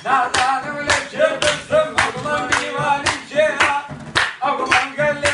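Man singing a Kurdish song to a daf frame drum, whose sharp, jingling strokes keep a steady rhythm under the voice.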